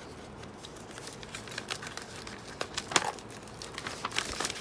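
Packaging being handled, rustling and crinkling, with scattered short sharp crackles; the loudest comes about three seconds in.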